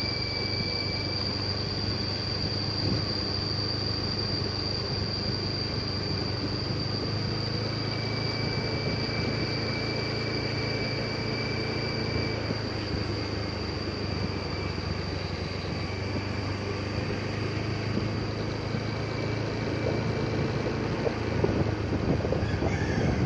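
Steady engine and tyre noise of a vehicle driving along a smooth asphalt road, heard from on board, with a constant faint high whine and a thin high tone that comes and goes. It turns rougher and slightly louder near the end.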